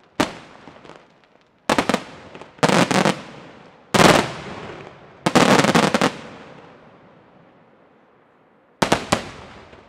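Aerial firework shells bursting in groups of sharp bangs, some fired as rapid salvos lasting up to about a second, each group trailing off in echo. After a lull of about two and a half seconds, a last salvo near the end.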